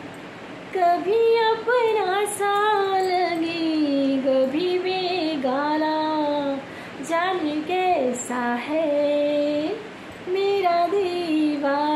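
A woman singing a Hindi song unaccompanied, holding notes and sliding between them, with two brief pauses.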